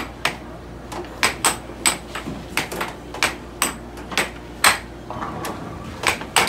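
Air hockey rally: the puck clacking off the mallets and the table's rails in quick, irregular knocks, about a dozen, over a steady low hum.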